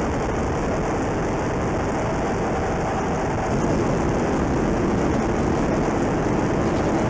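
Steady rushing cockpit noise inside a flying F/A-18 Super Hornet jet. A little past halfway it gives way to a slightly louder, similar loud muffled noise from a recording that may be a ship's ambient noise.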